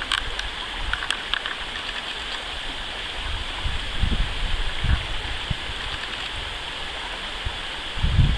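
Steady rush of a flowing stream, with a few low thumps about four, five and eight seconds in.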